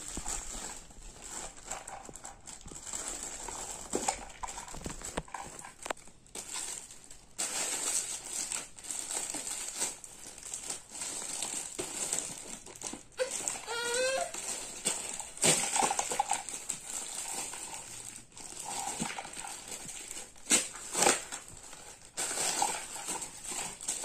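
Plastic wrapping crinkling and cardboard packaging rustling and scraping as a toy is unpacked from its box, with a few louder crackles. About halfway through, a brief squeak rises steeply in pitch.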